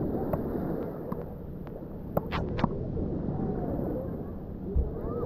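Wind buffeting the microphone over small waves washing on a pebble shore. A few sharp clicks come about two seconds in, and a short low thump comes near the end.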